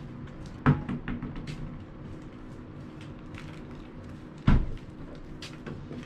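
Two heavy thumps about four seconds apart, each followed by a few lighter clicks and rattles, over a steady low hum.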